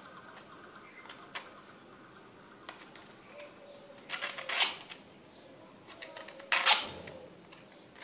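Quiet handling sounds: a kitchen knife's steel blade is set against an angle grinder's head, with two short scrapes, the second louder, near the middle and about two-thirds of the way in. No motor is running.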